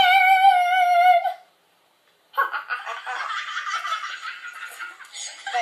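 A child's voice holds one high-pitched squealing note for about a second, then after a short break of silence giggles breathily through the rest.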